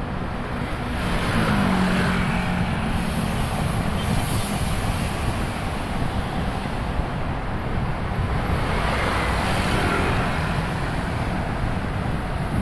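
Steady road and traffic noise heard from a moving vehicle, with wind rumble on the microphone and engines running. About a second and a half in, a low engine tone sounds briefly and then dips slightly in pitch.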